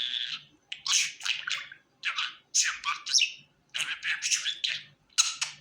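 Budgerigar chirping and warbling in quick high bursts of several notes, with short pauses between the bursts about once a second.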